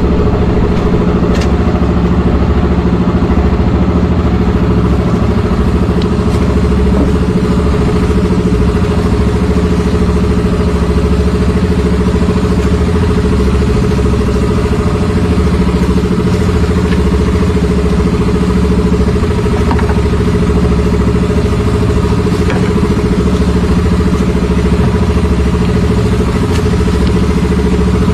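Outrigger fishing boat's engine running steadily while under way: a loud, even drone that holds one pace throughout.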